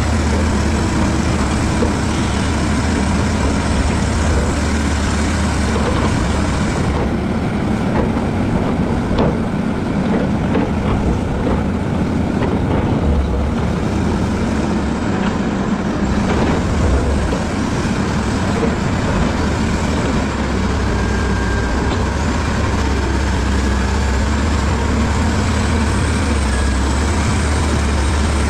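Caterpillar bulldozer's diesel engine running steadily under work, with a deep low drone.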